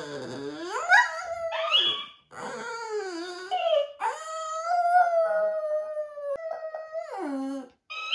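French Bulldog howling in long, wavering "awoo" calls that glide up and down in pitch. It breaks off briefly about two seconds in. About halfway through it holds one long note for roughly three seconds, then slides down low before stopping near the end.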